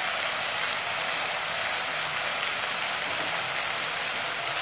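Chopped water spinach frying in a little mustard oil in a pan: a steady sizzle.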